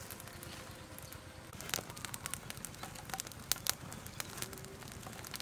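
Small fire of dry sticks crackling, with sharp, irregular pops that start about one and a half seconds in.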